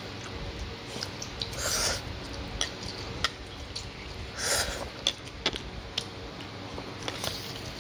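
A person eating instant noodles from a bowl: a utensil clicks against the bowl several times, with chewing and two short breathy noises about two seconds and four and a half seconds in.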